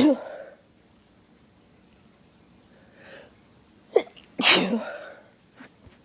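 Sneezing: one sneeze right at the start, then a faint in-breath and a short sharp catch before a second, loud sneeze about four and a half seconds in.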